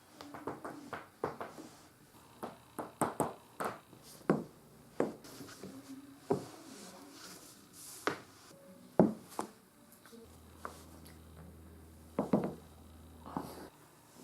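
Human joints being cracked: a string of sharp pops and clicks, some in quick runs of three or four, with louder single pops about eight and nine seconds in.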